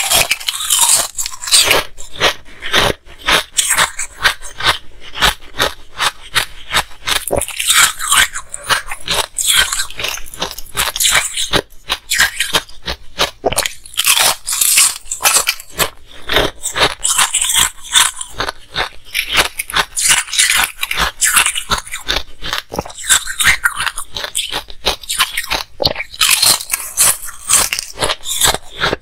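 Ice being bitten and chewed close to the microphone: a continuous, dense run of sharp crunches and cracks, several a second.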